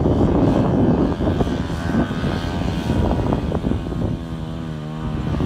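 Small motor running, rough and noisy at first, then settling about four seconds in into a steady, slightly wavering hum.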